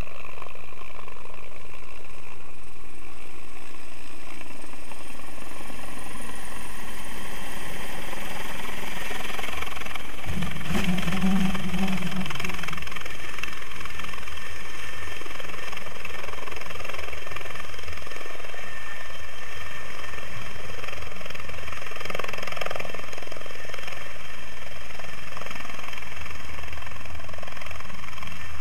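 A helicopter's rotor and turbine engines as it approaches and hovers low with a Bambi fire bucket slung beneath it. The low rotor beat swells to its loudest about ten to twelve seconds in, then settles into a steady hover.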